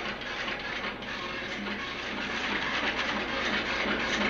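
A machine clattering in a fast, even rhythm, growing a little louder toward the end.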